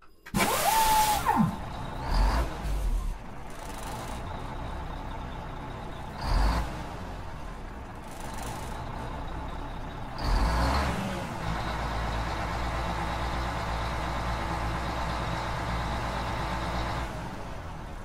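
Mack diesel truck engine starting with a sudden loud burst and a whine that falls away, then several short bursts of revving. It settles into steady running with a deep rumble from about eleven seconds in.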